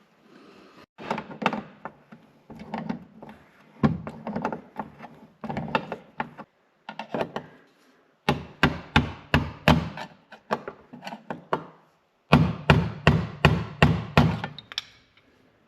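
Repeated hard knocks, ending in two quick runs of strikes at about four or five a second.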